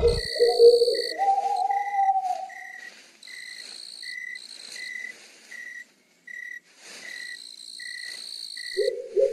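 Night-time nature ambience: short high insect chirps repeating about twice a second, over a steady higher buzz that comes and goes. A lower gliding call sounds near the start and again near the end.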